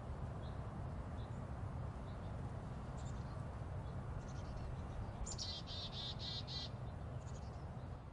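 Black-capped chickadees calling: scattered faint high chip notes, then about five seconds in a quick run of some eight buzzy repeated notes lasting about a second and a half. A steady low rumble lies underneath.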